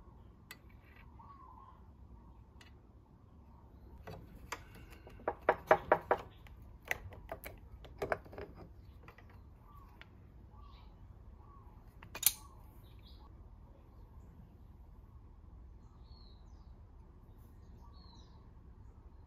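A burst of metal clinks and clanks partway through, then one sharp click a few seconds later: scooter CVT variator parts and hand tools knocking together as the outer variator face is taken off.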